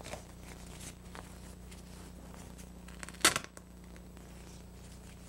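Low steady electrical hum with a few faint clicks, and one short, sharp noise about three seconds in.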